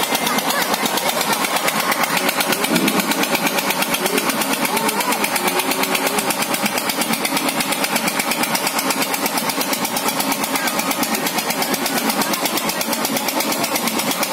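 A motor running steadily with a fast, even pulse, typical of an engine-driven fairground ride or generator.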